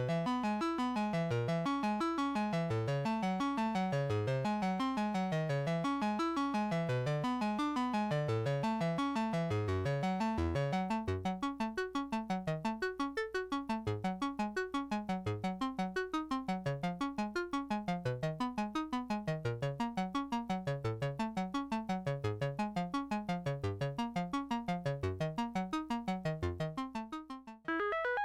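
Eurorack modular synthesizer playing a fast sequenced run of pitched notes, shaped by the CEMvelope ADSR envelope generator. About eleven seconds in the notes turn shorter and more clearly separated, and near the end the sound fades, then cuts back in suddenly with a brighter tone.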